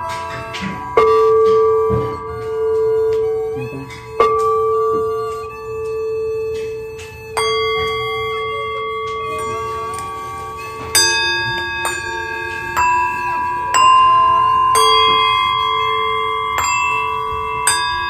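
Improvised music: an erhu bowed in long held notes, with a bell-like instrument struck about nine times, each strike ringing on, the strikes coming closer together in the second half.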